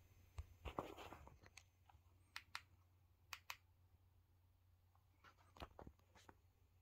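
Near silence: room tone with a faint low hum and a handful of faint clicks, several coming in pairs about a fifth of a second apart.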